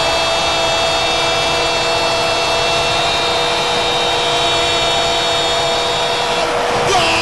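Football stadium crowd roaring after a goal: a steady wash of crowd noise with held droning tones running through it, shifting briefly near the end.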